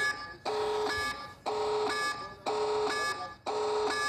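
A short electronic sound looped about once a second, each repeat holding several steady tones for a little over half a second before a brief gap.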